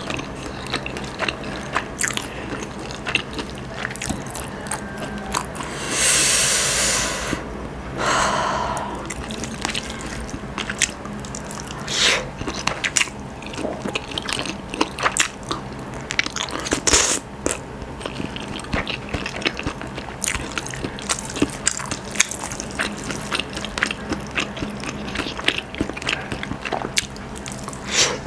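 Close-miked eating sounds of rice and shredded chicken pastil eaten by hand: chewing, lip smacks and sticky mouth clicks throughout. Two short breathy rushes come about six and eight seconds in.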